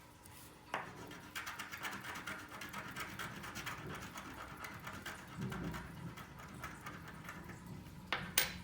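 Scratch-off panels on scratch cards being scratched away, a fast, continuous rasping run of small scrapes. A sharp click near the end.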